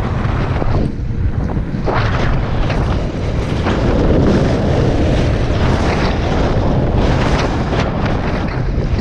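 Wind buffeting the microphone of a camera on an electric scooter moving at speed: a loud, steady low rumble with repeated gusty surges every second or so.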